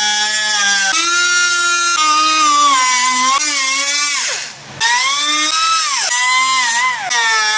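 Cutoff wheel cutting through the sheet-metal fender: a high whine whose pitch shifts as the wheel bites and jumps abruptly several times. About halfway through, it winds down, goes briefly quieter, and spins back up.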